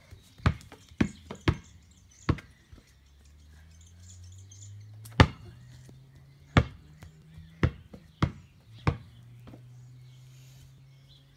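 Giant inflatable tennis ball being batted up into the air by hand: a series of sharp smacks at uneven intervals, about nine in all.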